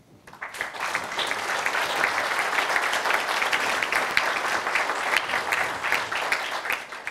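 Audience applauding, a room full of people clapping; it swells up over the first second and is cut off suddenly near the end.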